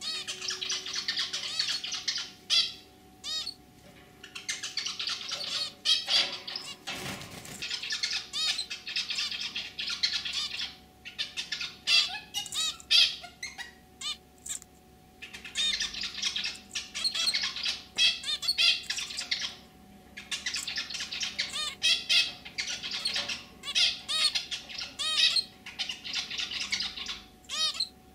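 Zebra finch singing: repeated bouts of quick, high notes, broken by pauses of about a second. A short burst of noise comes about seven seconds in.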